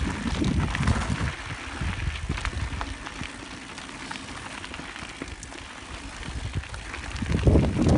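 Handcycle rolling over a rough trail, with a steady scatter of small clicks and crackles from the tyres and frame. Wind buffets the microphone with low rumbling gusts at the start and again near the end.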